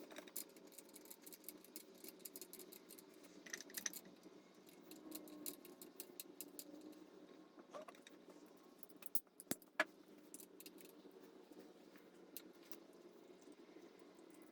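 Faint scattered clicks and light metallic clinks of hand tools and engine parts being handled, over a low steady hum, with a few sharper clinks about four, eight and ten seconds in.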